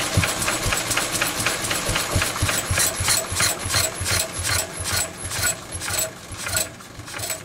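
Small single-cylinder stationary petrol engine running with an even firing beat, about five a second, which slows and fades over the last couple of seconds as the engine is being stopped.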